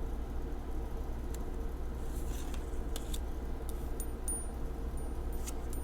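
Tarot cards being handled and turned over, giving faint soft clicks and slides, several of them in the second half, over a steady low background hum.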